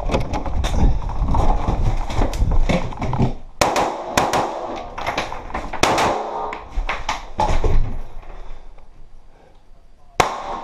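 Running footsteps and gear rattle, then a fast string of rifle shots from an AR-style carbine a few seconds in, about six in quick succession. More shots follow, and one more sharp shot comes near the end.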